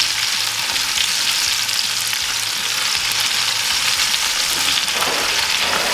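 Two steaks sizzling in clarified butter with garlic cloves in a carbon steel skillet and a cast iron skillet: a steady frying hiss with scattered small pops and crackles.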